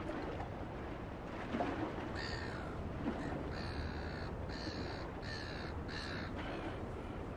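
A bird calling, a run of about five repeated calls of roughly half a second each starting about two seconds in, over a steady low background noise.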